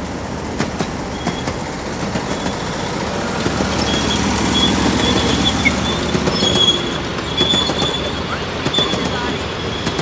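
Ride-on miniature train loaded with riders passing close by on small-gauge track. Its wheels rumble and click over the rail joints, growing louder toward the middle as the cars go past, with a high wheel squeal that comes and goes.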